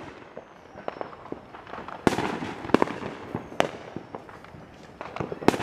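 Fireworks going off: a sharp bang about two seconds in, two more over the next second and a half, and a quick cluster of bangs near the end, with smaller scattered pops between them.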